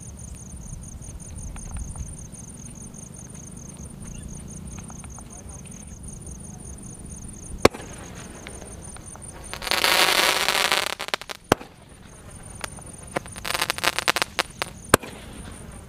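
Ajanta 12-shot aerial firework cake firing its shots slowly, with long gaps between them. There is a sharp crack about halfway through, a loud rushing hiss about two seconds later, then a run of crackles and pops ending in another sharp crack. Insects trill steadily in the background.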